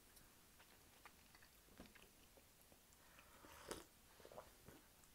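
Faint chewing of chocolate candies, with small scattered mouth clicks, and a quiet sip from a mug about three and a half seconds in.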